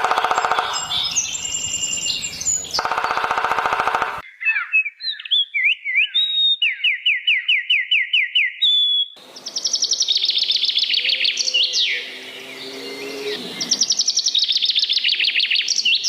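A string of abruptly spliced animal calls, mostly birds chirping and trilling. The first few seconds hold a lower, buzzy call. After that come quick repeated chirps, then high, fast trills from about nine seconds in.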